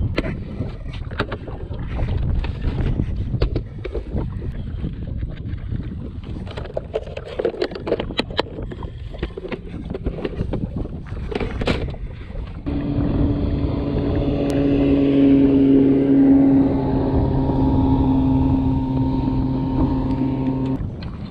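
Gear handling on a boat deck, with clicks and knocks over wind rumble on the microphone. About halfway through, a steady motor hum starts and holds one pitch, then stops shortly before the end.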